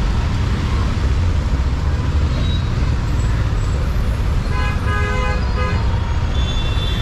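Low, steady rumble of a motorcycle engine and surrounding street traffic. A vehicle horn honks in a few short blasts a little past the middle.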